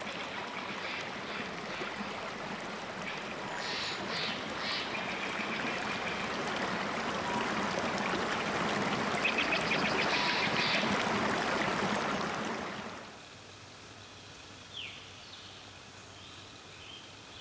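Rushing stream water running steadily, with short high chirps over it now and then. About thirteen seconds in the water noise drops away to a quieter forest background, where a bird calls briefly.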